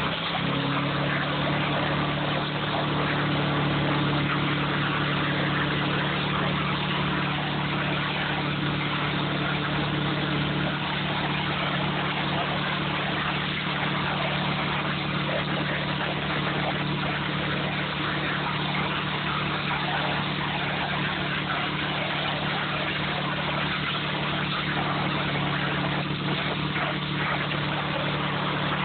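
Briggs & Stratton engine of a Dayton pressure washer running steadily under load, with the hiss of the water spray.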